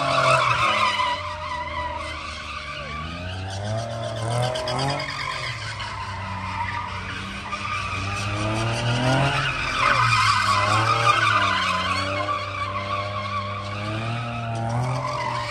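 A car drifting, tyres screeching while the engine revs up and down again and again. The squeal is loudest at the start and again about ten seconds in.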